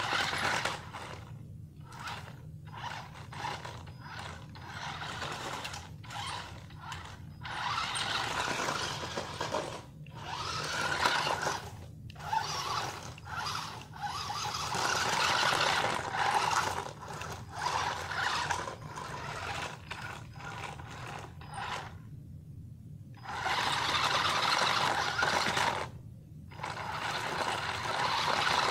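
Revolt stunt RC car's Arduino-controlled electric drive motors whirring as it drives over stone paving and grass, in irregular bursts broken by short pauses as the motors stop and start.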